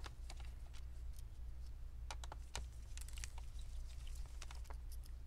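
Scattered light clicks and taps of gloved fingers handling a laptop's plastic bottom cover, a few ticks a second at irregular intervals, over a steady low hum.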